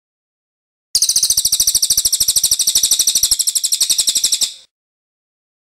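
Caged songbird singing a fast, high-pitched trill of over a dozen notes a second, lasting about three and a half seconds and stopping abruptly.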